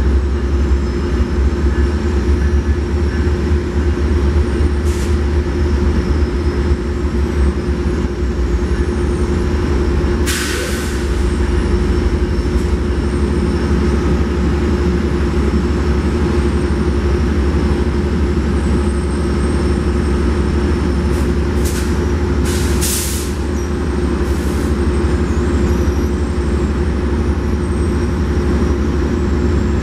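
Train locomotive running steadily with a deep rumble and hum, with short blasts of hissing air from the air brakes, once about a third of the way in and a cluster of several about two thirds of the way in.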